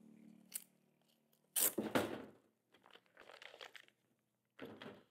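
Clear plastic bag crinkling as it is handled and lifted out of a hard plastic case, in a few short rustling bursts, the loudest about a second and a half in.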